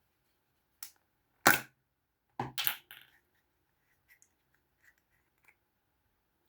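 Small plastic toy pieces or capsule being handled and snapped: a click, then one loud sharp crack, a quick cluster of crackles, and a few faint ticks near the end.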